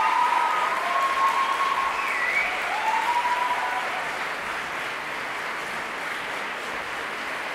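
Audience applauding in a concert hall, a steady patter of many hands that eases somewhat after about four seconds. A few brief pitched calls from the audience sound over it in the first three seconds.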